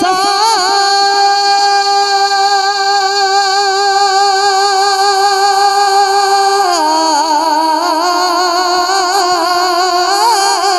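A man singing a naat unaccompanied into a microphone, holding one long note with a slight vibrato, then about two-thirds of the way through dropping lower into a wavering, ornamented run.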